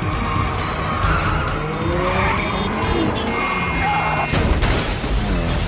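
Race car engines revving and tyres skidding in a film sound mix, over a music score. A loud rushing burst sweeps through about four and a half seconds in.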